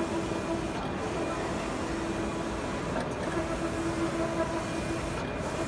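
Gongzheng GZC 3202SG wide-format inkjet printer with Dimatix Starfire print heads running a print job. The print-head carriage sweeps back and forth with a motor whine over a steady machine whir. The whine breaks off and returns about every two seconds, pass by pass.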